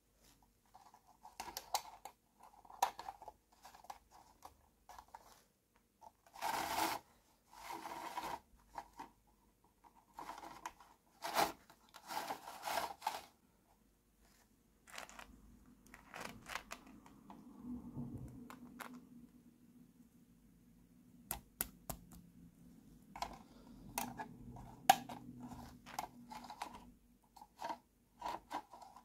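Small plastic parts of a toy house being handled and pressed together: irregular clicks, taps and scrapes of plastic on plastic, with a quieter stretch of rubbing in the middle.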